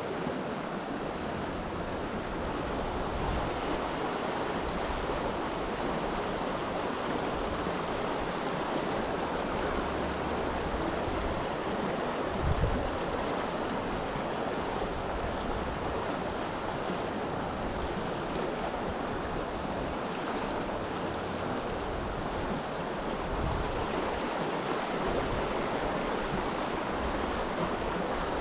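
Steady rush of a fast-flowing creek riffle, with wind rumbling on the microphone and a single brief bump about halfway through.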